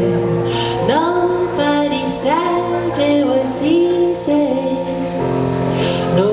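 A woman singing a slow ballad over steady, sustained accompaniment chords, her held notes wavering with vibrato.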